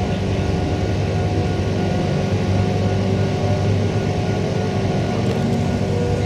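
Interior running noise of a Queensland Rail electric multiple unit car in motion: a steady electric hum with several held tones over even running noise from the wheels and track.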